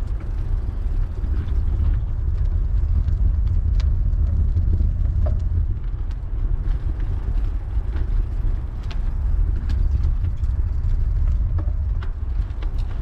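Cannondale F400 mountain bike rolling along a gravel path: a steady low rumble with many small scattered clicks of grit under the tyres.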